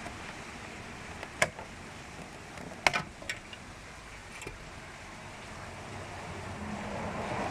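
A few sharp clicks and knocks from parts or tools being handled during hand work on a car door window regulator, over a steady background hiss: one about a second and a half in, then a quick cluster around three seconds in.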